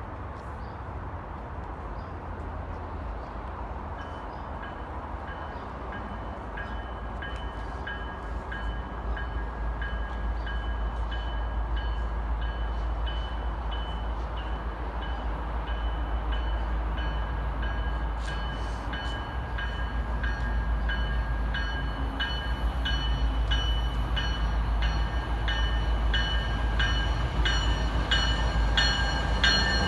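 MBTA train running on the rails: a low rumble that grows steadily louder, and from about four seconds in a high ringing tone that pulses in a regular beat and gets stronger toward the end.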